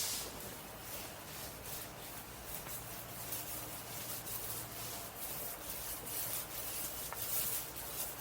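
A brush rubbing thick bed-liner coating onto a camper shell in repeated short, irregular strokes.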